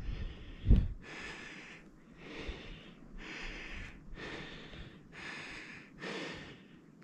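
A person breathing hard and steadily close to the microphone, about one breath a second, from the effort of skiing through deep snow. A single dull thump a little under a second in.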